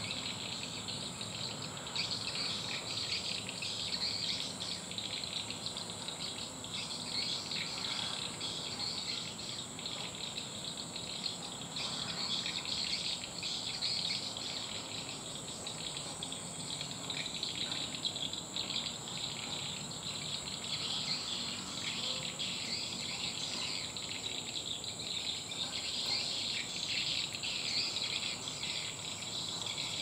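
Steady insect chorus: an unbroken high-pitched trill with dense, rapid chirping below it, running on without a break.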